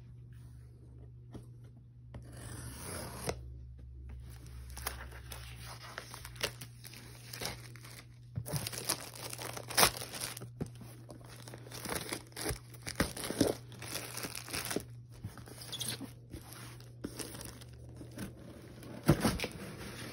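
Packing tape being sliced and torn along the seams of a cardboard gift box, with scraping, crinkling and rustling of cardboard and tape, and a few sharper clacks as the lid is pulled open near the end.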